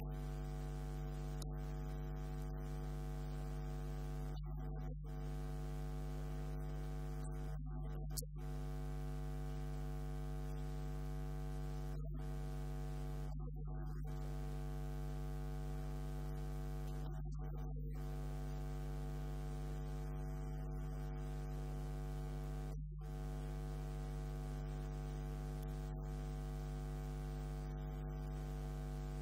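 Steady electrical hum, a low buzz with many overtones, unchanging throughout, with a brief click about eight seconds in.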